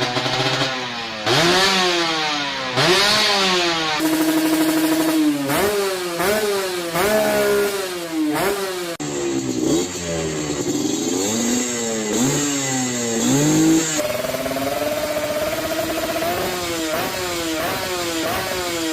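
Two-stroke engine being revved in repeated throttle blips, the pitch climbing and dropping again and again. The sound changes abruptly a few times, as if between separate takes.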